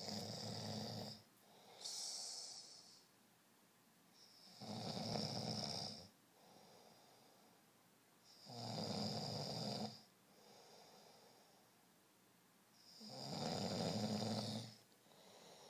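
A sleeping person snoring: four loud, rattling snores, each about a second and a half long and coming every four seconds or so, with a softer breath between them.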